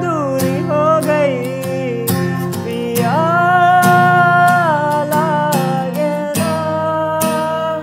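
Acoustic guitar with a capo, strummed in a steady rhythm, under a man's voice singing without clear words. He holds a long note about three seconds in and another near the end.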